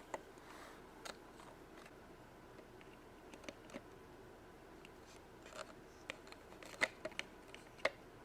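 Small plastic toy pieces being handled and set into a plastic toy fridge, making scattered light clicks and taps. The two loudest clicks come near the end.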